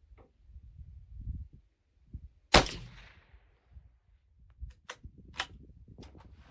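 A single .22 WMR rifle shot from a CZ 457 firing a Remington 40 grain pointed soft point, about two and a half seconds in, with a short fading tail. A few sharp clicks follow a couple of seconds later.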